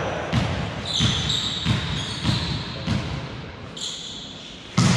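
A volleyball bounced on a hard gym floor five times in a steady rhythm, with sneaker squeaks on the court. A loud, sharp hit comes just before the end.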